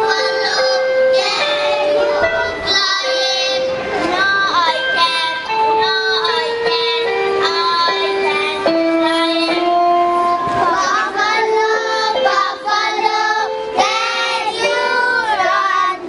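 Children singing a song together over recorded backing music, with a steady melody line of held notes.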